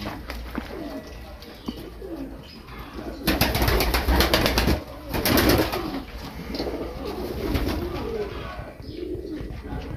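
Domestic pigeons cooing in a loft, many low rolling coos overlapping. About three seconds in, a louder noisy stretch lasts about a second and a half.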